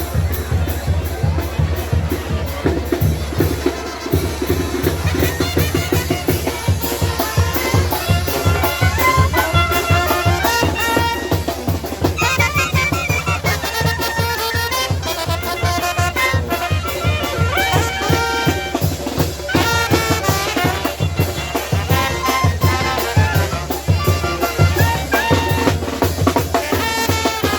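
Band music with a steady, fast drum beat and wind instruments, brass and clarinet, playing the melody.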